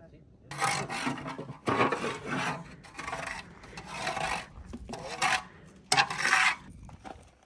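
A long-handled metal shovel scraping ash and charcoal debris across the bottom of a steel fire bowl, in about six rough strokes, clearing out the old charcoal before a new fire.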